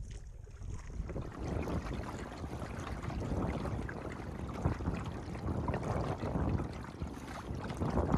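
Water lapping and splashing against the hull of a small homebuilt sailing skiff under way, a steady irregular chuckle with wind rumbling on the microphone.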